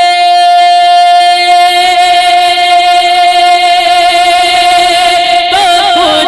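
Male naat reciter's voice, amplified through a handheld microphone, holding one long, steady sung note for over five seconds, then breaking into quick wavering melodic turns near the end.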